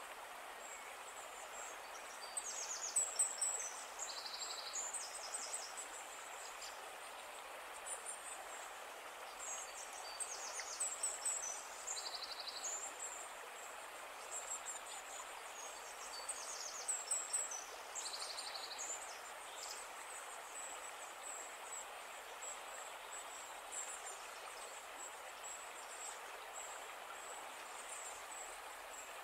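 Small birds singing outdoors: bursts of rapid high trills and chirps every few seconds over a steady hiss.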